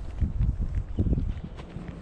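Footsteps of a person walking at a steady pace. The two strongest are dull thuds, one near the start and one about a second in.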